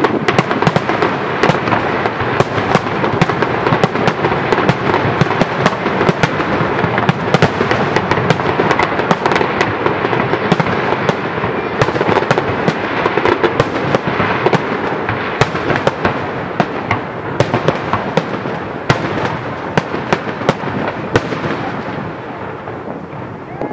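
Fireworks display: a dense, continuous barrage of bangs and crackling shells, thinning out and fading near the end.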